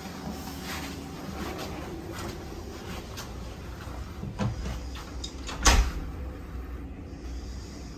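A door knocking shut: a soft knock about four seconds in, then a louder one near six seconds, over a steady low room hum.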